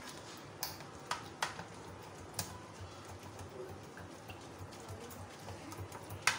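A whisk beating thick, set ghee in a steel saucepan, knocking against the pan's metal side in about five sharp clicks, the loudest near the end. The ghee is being beaten over ice water until it turns white as margarine.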